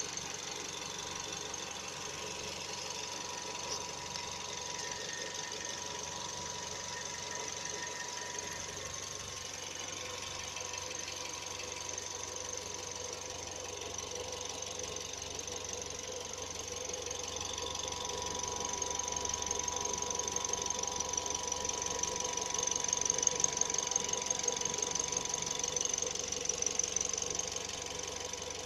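2008 Suzuki SX4 engine idling steadily, heard up close in the engine bay, with a fast, even ticking running through it. It grows louder for several seconds in the second half, then drops back.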